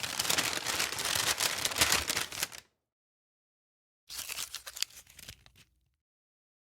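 Paper sound effects: a dense crackling of paper that stops about two and a half seconds in, then after a silent gap a second, quieter and shorter paper sound starting about four seconds in.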